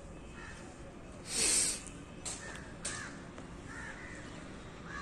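Crows cawing now and then: several short caws spread across the few seconds, over a steady outdoor background. A brief, louder rush of noise comes about a second and a half in.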